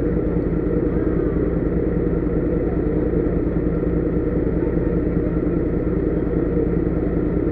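Heavy low loader truck's diesel engine running steadily, an even low hum that holds one speed throughout.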